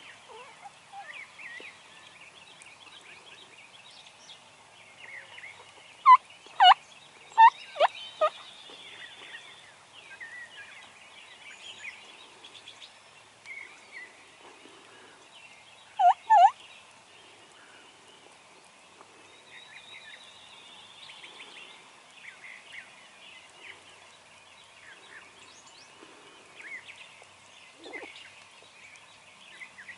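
Wild turkey calls: a loud bout of about five notes about six seconds in and a pair of notes around sixteen seconds, over the faint chirping of songbirds.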